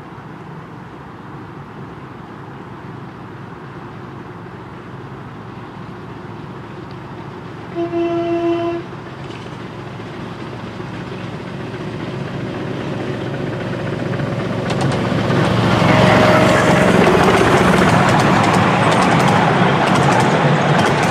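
A miniature-gauge passenger train, double-headed by a petrol-hydraulic locomotive and a 2-4-2 steam locomotive, approaching and growing steadily louder, with one short toot of about a second just under eight seconds in. From about fifteen seconds the train passes close by and its carriages rattle past, wheels clicking over the rail joints.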